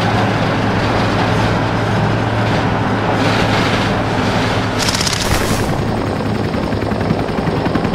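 Battle sound effects: a dense din with a steady engine-like rumble underneath, and a quick burst of automatic gunfire about five seconds in.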